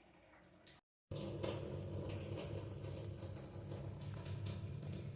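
Water running steadily from a tap, starting abruptly about a second in after a short silent cut.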